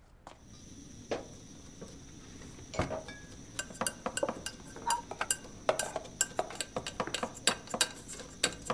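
Kitchen clatter: metal utensils, bowls and pots clinking and knocking against each other and the steel counters, sparse at first and growing busier from about three seconds in.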